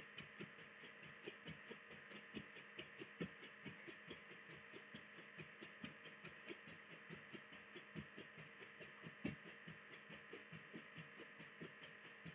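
Faint, irregular thumps of feet landing on the floor, a few a second, during a jumping exercise that switches one foot forward and one foot back.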